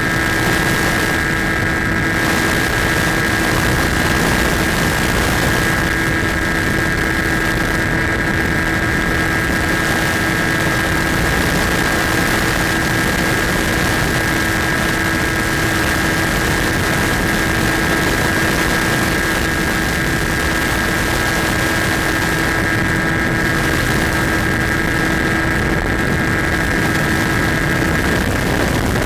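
Electric motor and propeller of a Skywalker RC model plane in flight, recorded on board. It holds a steady, unchanging whine over a constant rush of air.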